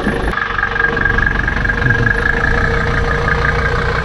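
Mercedes-Benz W123 240D's four-cylinder diesel engine idling steadily, freshly started after the glow plugs were held.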